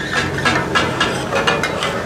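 Rapid, even clatter of two flat metal blades striking a large iron griddle, about five strikes a second, as goat kidney, liver and brain are chopped and minced for taka-tak. The frying hiss of the meat and fat runs underneath.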